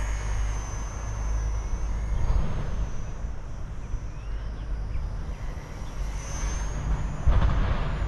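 Small electric RC warbird's motor and propeller whining high in pitch, the pitch wavering up and down as the plane flies about, over a low rumble of wind on the microphone. A louder buffet on the microphone comes near the end.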